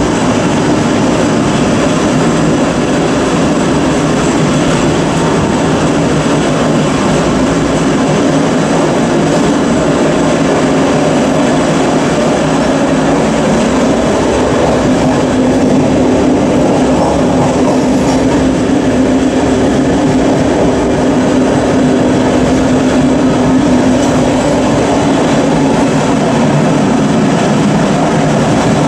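MÁV M43 diesel-hydraulic locomotive running close by, its engine's steady low drone mixed with the rolling noise of wheels on rail, heard through an open coach window. The drone grows stronger about halfway through for several seconds.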